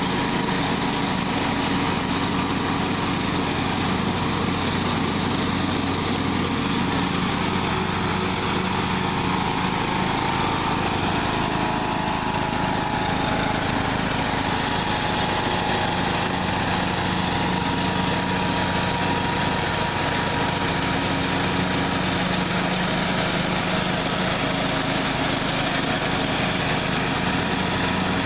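John Deere LA115 riding lawn mower's 19.5 hp Briggs & Stratton engine running steadily at a constant speed.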